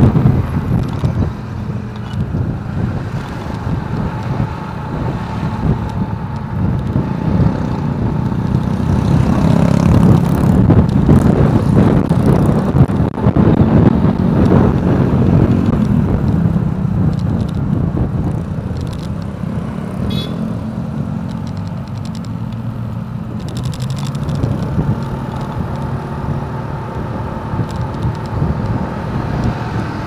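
Wind buffeting the microphone over the running engine and road noise of a motorcycle riding in city traffic, a continuous rumble that grows louder around the middle.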